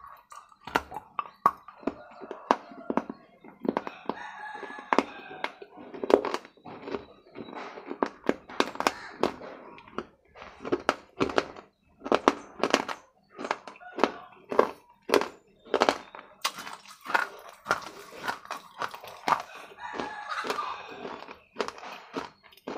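Wet chewing and lip-smacking close to a clip-on microphone, as quick, irregular clicks and smacks throughout.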